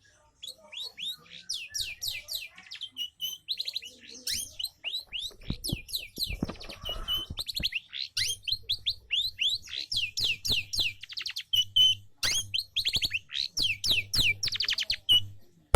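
Canary singing a long, fast song of rapid downward-sweeping notes and rolling trills, broken by a few short pauses. A few low thumps come through about six to seven seconds in.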